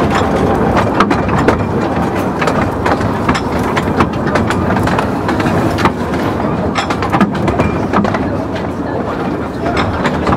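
Riding aboard a narrow-gauge steam train hauled by a Quarry Hunslet 0-4-0T tank engine: a steady running rumble with irregular clicks and rattles from the carriage wheels over the track.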